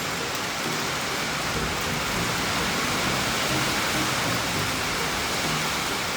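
Heavy rain pouring down on a shed roof, a steady dense hiss.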